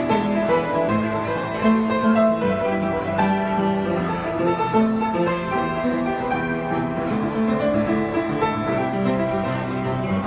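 Solo piano playing a continuous, flowing passage with many notes sounding together.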